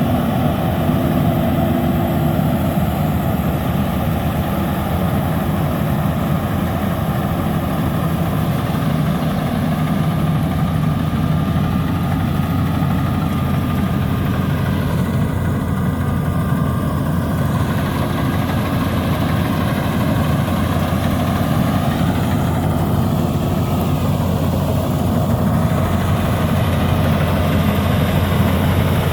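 Rice combine harvester running steadily: a continuous engine drone with machinery noise, even in level throughout.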